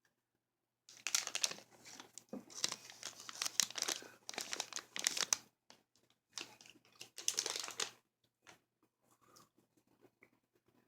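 Plastic candy bag crinkling as the truffles are handled, in two stretches of dense crackling separated by a short pause, followed by a few faint ticks.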